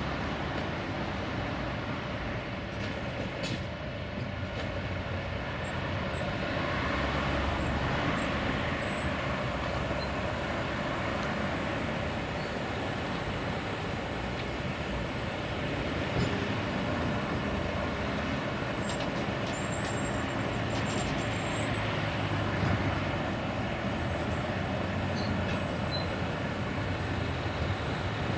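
Steady machinery noise from the Volvo truck and the low-loader trailer's winches as the tram is winched down off the trailer.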